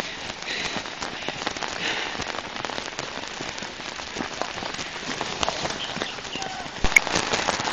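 Shallow floodwater running over a concrete lane, a steady splashing rush, with a single sharp knock about seven seconds in.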